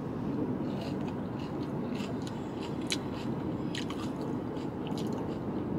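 Close-up chewing of a hash brown: small crunches and wet mouth clicks scattered through, over a steady low hum in the car's cabin.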